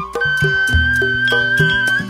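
Dangdut-style music from a live keyboard band: a steady drum beat of about four strikes a second under one long held high melody note.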